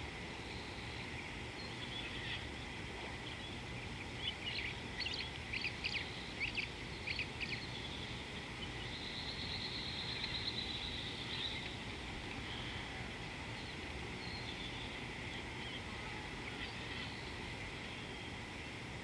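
Outdoor bush ambience with wild birds calling over a steady high-pitched chorus and low background rumble. There is a run of short, sharp call notes about four to seven seconds in, then a buzzy trill lasting a couple of seconds around the ten-second mark.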